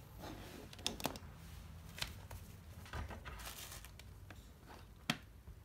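Faint handling sounds of cables, plugs and a small circuit board being moved about on a cutting mat: a few sharp clicks and taps, the loudest near the end, and a brief rustle a little past the middle.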